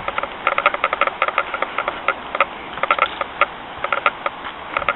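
Footsteps through dry leaf litter and twigs on a forest floor: a run of quick, irregular crackles and ticks, several a second.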